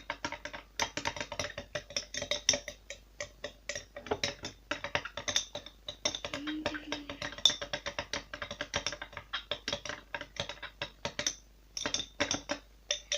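A mixing utensil stirring liquid cream soap fast in a container, clicking and tapping against its sides several times a second, as the soap is whipped until it foams into bubbles.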